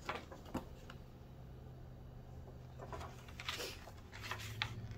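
Paper magazine being handled and laid down on a table: a couple of light taps in the first second, then soft page rustles later on, over a faint low hum.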